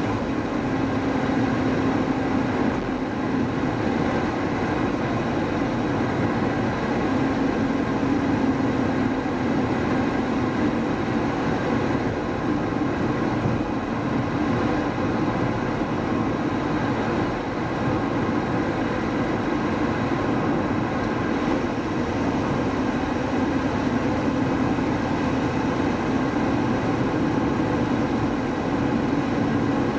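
Mercedes-Benz W124 being driven: a steady mix of engine and tyre-and-road noise, even in level throughout.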